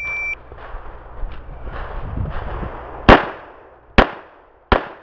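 A shot timer's short electronic start beep, then three shots from a Springfield XD(M) 5.25 pistol in .45 ACP, each under a second apart, the first the loudest.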